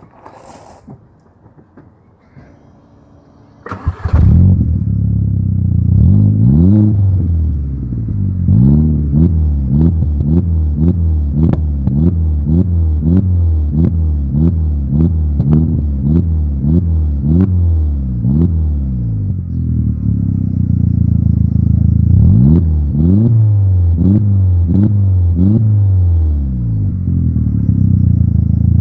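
Engine with a 3-inch exhaust and 5-inch back box starting about four seconds in, then running with rapid repeated throttle blips, each a quick rise and fall in pitch. It settles to a steady idle, then there is a second burst of blips and more steady running.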